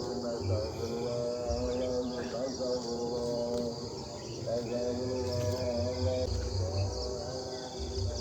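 Steady shrill chorus of crickets or similar insects. Under it runs a low pitched tone that wavers slightly, coming in phrases of a second or two with short breaks, along with some low rumbling.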